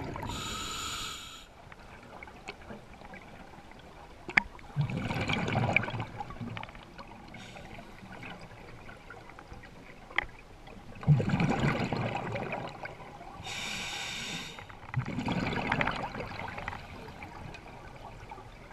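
A scuba diver breathing underwater through a regulator. A hissing inhale comes near the start and again about two-thirds through, and bubbly exhales come about five, eleven and fifteen seconds in. A few light clicks sound between breaths.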